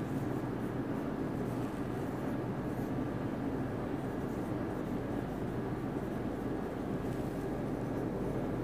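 Marker pen writing on a whiteboard, faint strokes over a steady low room hum.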